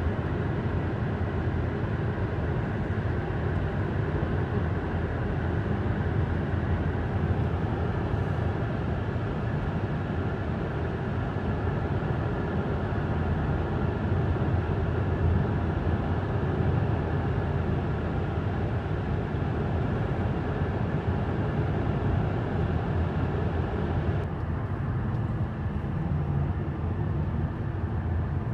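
Steady road noise of a car driving, tyres and engine heard from inside the cabin; the higher hiss drops away near the end.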